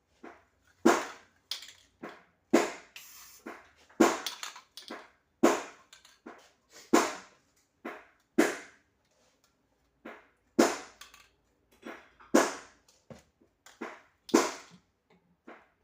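Microwave oven arcing: sharp snapping cracks of sparks inside the oven, one every second or two, over the oven's faint low hum.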